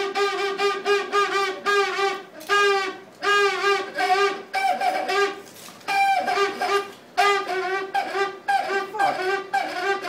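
Old wall-mounted extractor fan, faulty, giving off a loud pitched squealing whistle that warbles and pulses about four times a second, with a few short breaks, sounding much like a woodwind instrument.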